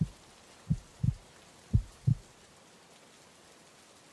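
Heartbeat sound effect: low lub-dub double thumps about once a second, stopping a little over two seconds in. A faint steady hiss remains underneath.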